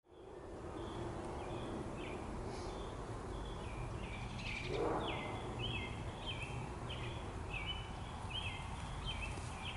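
A songbird calling over and over, a short falling call about twice a second, over steady low outdoor background noise. About five seconds in there is a brief rushing noise.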